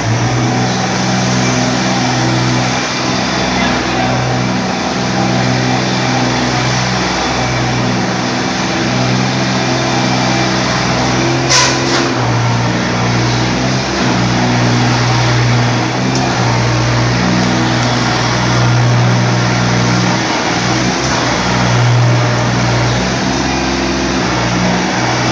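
Yanmar F20 compact tractor's diesel engine running steadily as the tractor drives around, the engine speed shifting a little now and then. A single sharp click sounds about halfway through.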